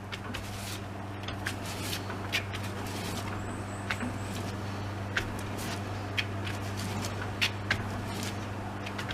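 Car running with a steady low hum, with irregular sharp clicks scattered through it.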